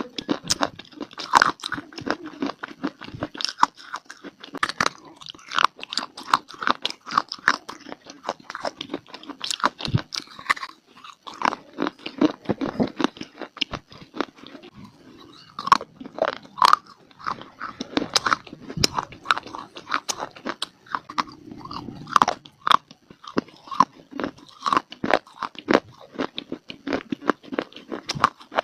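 A person biting and chewing brittle baked clay (mitti): a dense run of dry, sharp crunches and cracks, with brief pauses between bites.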